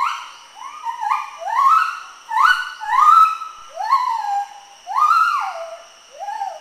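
Gibbon whooping: a run of about eight rising calls, each sliding up in pitch, holding briefly, then dropping away. The calls come close together and are loudest in the middle.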